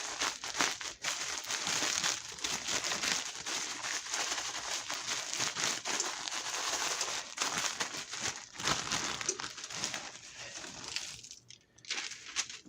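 A bag of breadcrumbs crinkling and rustling with many small crackles as chicken is shaken in it to coat it with breading. The rustling dies away about eleven seconds in.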